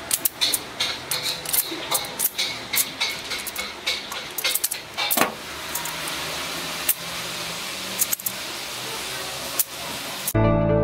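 Translucent plastic pieces of a magnetic cube puzzle clicking and clacking as they are handled and snapped together. The clicks come thick and fast in the first half, then a few spaced ones follow. Music starts suddenly near the end.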